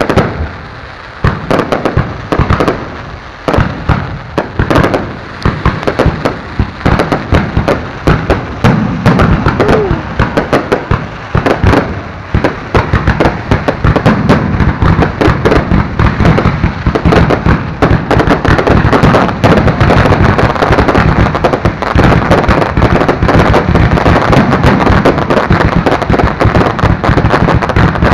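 Fireworks barrage going off close by. It opens with separate sharp bangs about two a second, then builds about eight seconds in into a dense, continuous crackling of rapid reports that keeps going.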